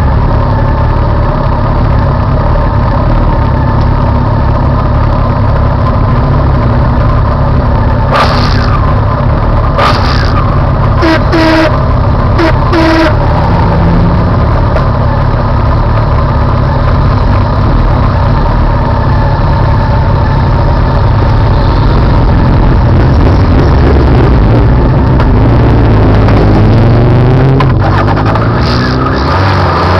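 Motorcycle engine idling close by, with a few knocks and a few short horn beeps between about eight and thirteen seconds in. Near the end the engine revs up, rising in pitch as the motorcycles pull away.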